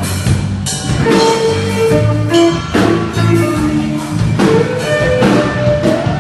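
A band playing a song: a drum kit keeps a steady beat under guitar, and a singer holds long notes over it.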